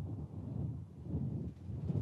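Low, steady rumbling background noise with no distinct events, like wind buffeting a microphone.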